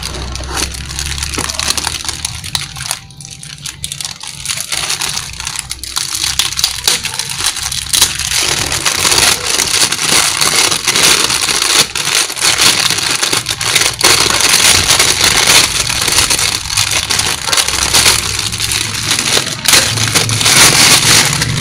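Clear plastic wrapping crinkling and rustling loudly close up as a camera body in its plastic bag is handled and pulled out of its cardboard box, louder and denser from about eight seconds in.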